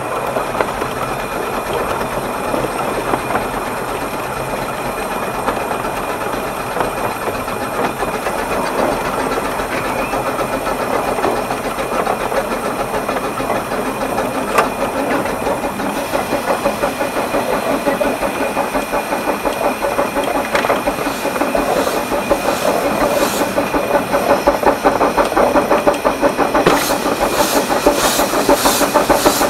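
12¼-inch-gauge steam locomotive Naomi working along the line, its exhaust beats chuffing steadily, heard from the footplate. The beats grow stronger and more marked after about twenty seconds, and in the last few seconds rhythmic hissing bursts of steam join them.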